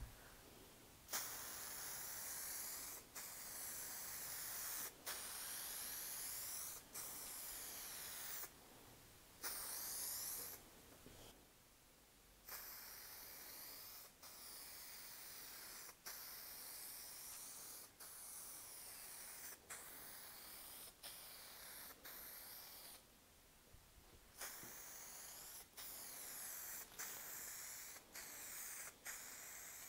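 Aerosol can of lacquer spraying in a string of passes, each one to two seconds of hiss with a short break between.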